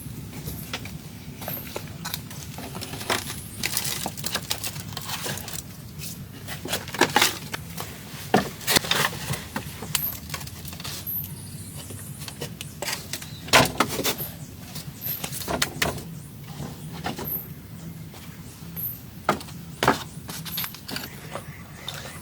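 Irregular knocks, cracks and clatters of wooden sticks and branches being handled, several of them sharp and loud, over a steady low background.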